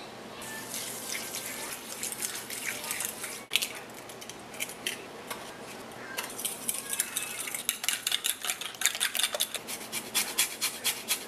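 Metal spoon stirring and beating ingredients in a glass mixing bowl, clinking and scraping against the glass. Near the end come fast, regular scraping strokes of a lemon being zested on a small metal grater.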